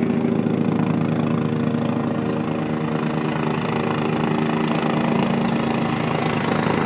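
UH-72 Lakota helicopter hovering and approaching low, its rotor beating rapidly over the steady whine of its turboshaft engines, getting a little louder near the end.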